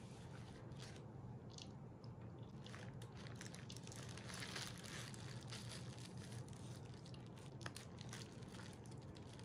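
Faint scattered rustles and small clicks of objects being handled, over a low steady room hum.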